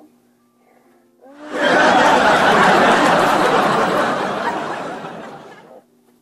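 Audience laughter, loud, swelling up about a second and a half in and fading away until it stops near the end.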